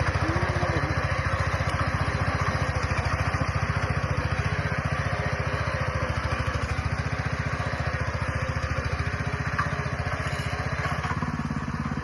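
An engine running steadily with an even, rapid pulse; its low tone shifts slightly near the end.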